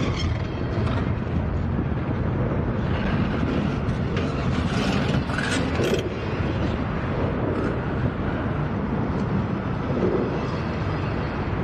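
Steady low rumble of vehicle noise, with a few faint clicks and rattles about halfway through.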